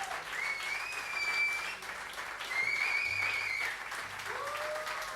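Concert audience applauding, with two long, high whistles ringing out over the clapping, then a voice calling out near the end.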